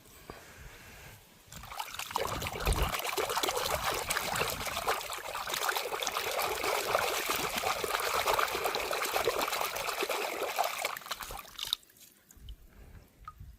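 Water running and splashing steadily as plastic toy cars are washed. It starts about a second and a half in and cuts off suddenly near the end.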